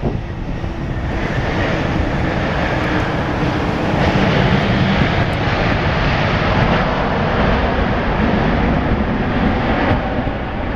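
Jet engine noise from a landing Airbus A300-600F freighter: a steady rushing sound that grows louder about a second in and then stays strong.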